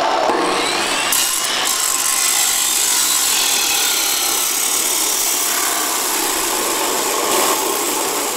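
HiKOKI abrasive cut-off saw running at full speed, its cutting disc grinding through steel angle iron in a steady, harsh screech. The disc bites into the steel about a second in, and the cut goes on without a break.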